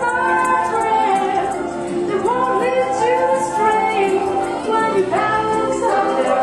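Show music: several voices singing together over instrumental accompaniment, phrases sliding up into held notes, played back over the theatre's speakers.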